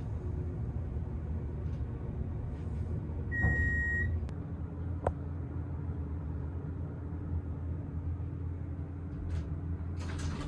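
Passenger elevator car travelling down: a steady low hum and rumble of the moving car, with a short electronic beep about three and a half seconds in and a sharp click about a second later.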